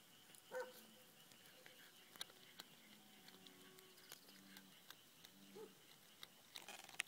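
Stray cat chewing and eating a small bass: faint, scattered crunching clicks, with one brief louder sound about half a second in.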